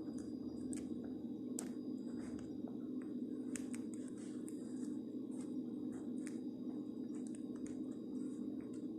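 Hands handling a plastic action figure and its small accessory pieces: scattered light clicks and short scrapes of plastic against plastic, over a steady low background hum.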